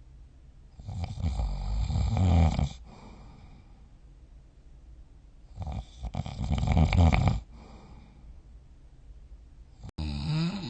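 A sleeping person snoring: two long snores about four seconds apart, each rising in loudness. Near the end, after an abrupt break, a shorter snore follows.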